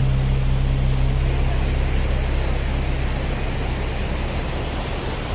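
Waterfall water pouring as a steady, even rush of noise, with a low steady hum underneath that fades out over the last second.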